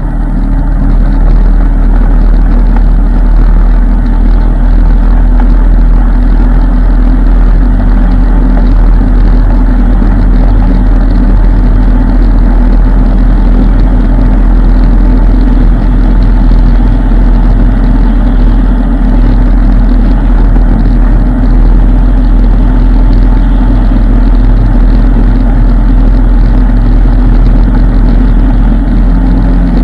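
ATV engine running steadily while the machine rides along a dirt trail, loud, with a deep low rumble; it grows louder over the first second, then holds even.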